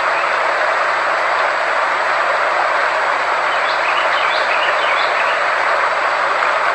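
Sound-therapy track: a steady, even rushing noise with faint constant high tones under it. A few faint short chirps come in about halfway through.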